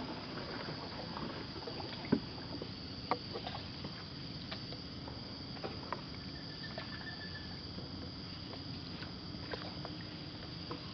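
Canoe being paddled slowly: scattered light knocks and water sounds from the paddle over a steady high background hum, with a brief high whistle about six seconds in.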